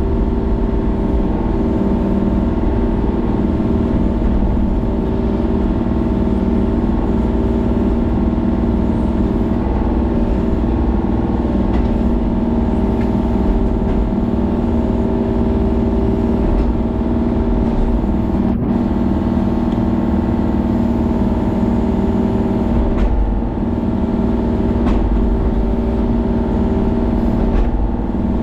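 Kubota mini excavator's diesel engine running steadily at working speed as the boom and thumb pull small pine trees out by the roots.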